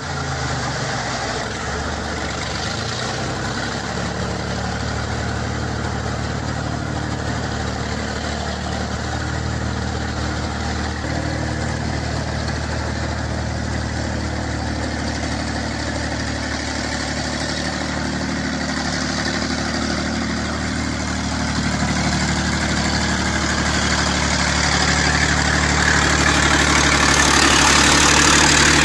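A truck engine running steadily at idle, growing somewhat louder over the last several seconds.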